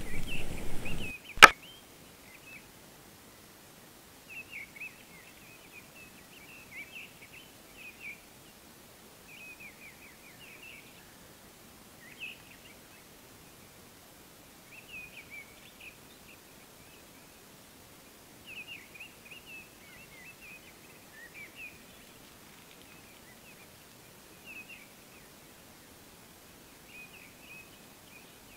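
Small birds chirping in short, quick phrases every second or two over a quiet background. A single sharp knock sounds about a second and a half in, the loudest thing here.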